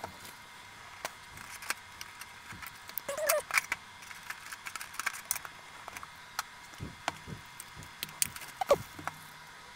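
Metal Pokémon card tins and booster packs being handled: scattered light taps, clicks and metallic rattles, with a short scrape about three seconds in and a louder one near the end.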